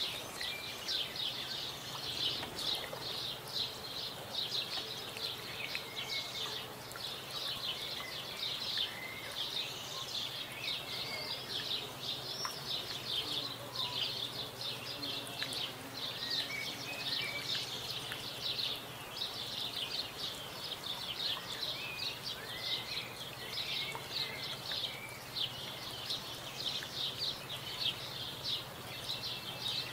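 Outdoor natural ambience: a dense, continuous high-pitched chirring chorus, with a few short, faint bird chirps scattered through it.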